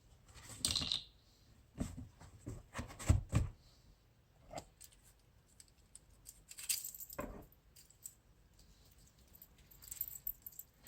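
Intermittent clinks, clicks and rustles of handling: a Nixon Re-Run wristwatch's metal bracelet jingling as it is picked up and turned over, along with its packaging, in several short bursts.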